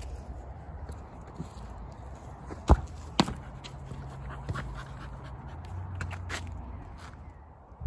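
A dog playing with a basketball: scuffs and footsteps, with two sharp knocks close together about three seconds in.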